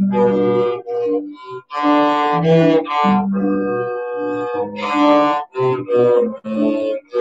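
Solo cello bowed through a melody of separate notes, one held longer in the middle, with short breaks between phrases.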